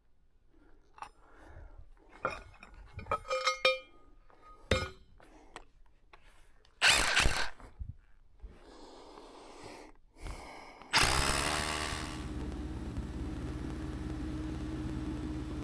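A run of sharp metallic clinks and knocks, some briefly ringing, followed by a loud burst of noise about seven seconds in. About eleven seconds in, an engine starts and runs steadily.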